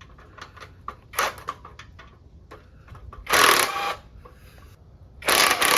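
Cordless impact driver hammering in two short bursts about two seconds apart, working a bolt on the edger. Light clicks and clatter of handling come before the bursts.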